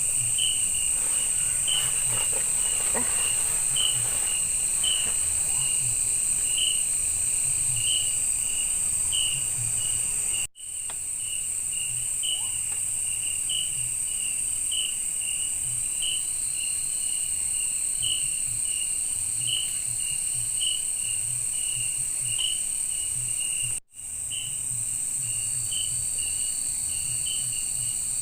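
Night insects in the forest: a steady high-pitched trill, with crickets chirping rhythmically over it about twice a second. The sound cuts out for an instant twice, about ten seconds in and again near the end.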